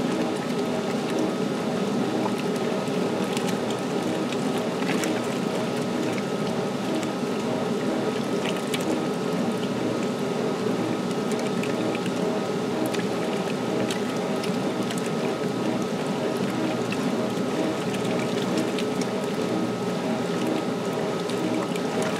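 1978 Maytag LA806 top-load washer filling for a large load: water pouring steadily into the tub over a low steady hum, with scattered small clicks.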